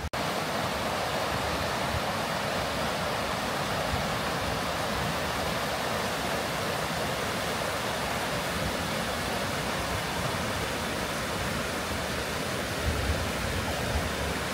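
Steady rush of flowing water from a mountain stream, an even hiss with no breaks. A few soft low bumps come near the end.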